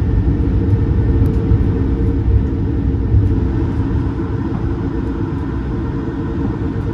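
Steady low rumble inside the cabin of an Airbus A220-300 airliner in motion. It eases slightly about two-thirds of the way through.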